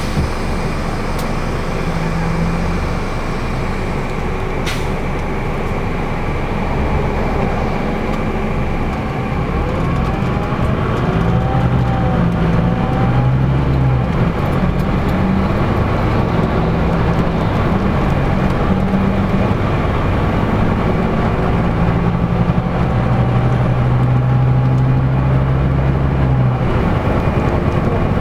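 Cabin noise inside a LiAZ-5250 intercity bus cruising on a highway: a steady engine drone with tyre and road rumble. It grows a little louder about ten seconds in.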